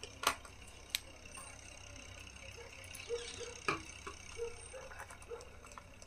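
Small metallic clicks and taps of a precision screwdriver on the bottom-case screws of a MacBook Air's aluminium panel as they are tightened, with sharper clicks near the start and about halfway through, over a low steady hum.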